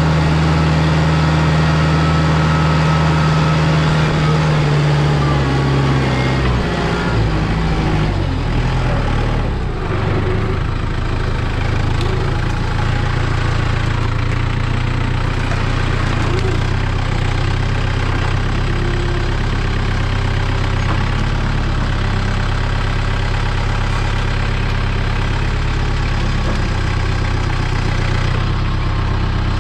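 New Holland mini excavator's diesel engine running steadily; about six to seven seconds in its note drops to a lower pitch and holds there.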